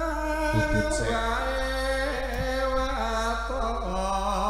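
Javanese gamelan singing: a solo voice holds long, ornamented notes that slide slowly from one pitch to the next, with little else heard.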